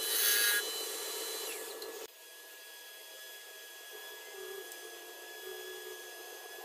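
Wood lathe turning a walnut bowl: a turning tool scrapes the spinning wood for about half a second, then the lathe runs on with no cut. About two seconds in the sound drops abruptly to a faint steady motor hum with a thin whine.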